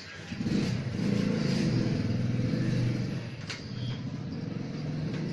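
A motor running with a steady low hum, loudest for the first few seconds and then easing off.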